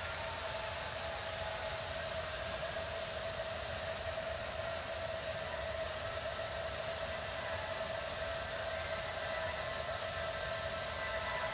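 Ambient concert-intro drone: a steady wash of noise with one held mid-pitched tone, and a few higher held tones fading in near the end as the music begins.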